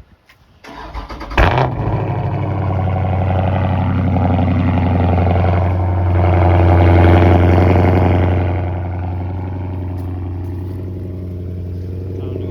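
Dodge Charger cold start: the starter cranks briefly about a second in, the engine catches with a loud flare, then settles into a steady idle that swells a little in the middle and eases down slightly near the end.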